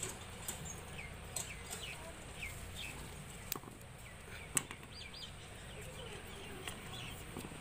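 Birds chirping in short, falling calls, with a few sharp clicks, the loudest about four and a half seconds in.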